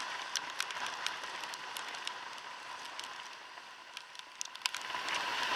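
Rain on a camera filming from a scooter: a steady hiss with scattered sharp ticks of drops striking the camera, and a faint steady whine underneath.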